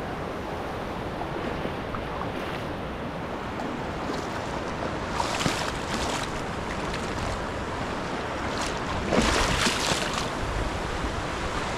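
Sea waves washing onto the shore, with wind on the microphone. The surf swells louder twice, around the middle and again near the end.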